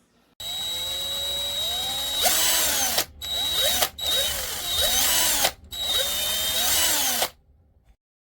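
DEKOPRO 20V cordless drill motor running at speed with a high whine, its pitch rising and falling several times as the trigger is worked. It stops briefly three times and cuts off shortly before the end. The drill is giving off a smoky, bad smell, which the owner says it is not supposed to do.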